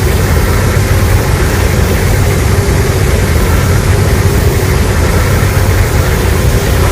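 Loud, steady rumbling sound effect: a dense, continuous roar of noise, heaviest in the low end, with no clear pitch or rhythm.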